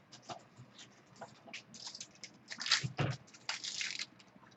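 Trading cards and their packaging being handled: a run of short crinkling, scratchy rustles, loudest about three seconds in.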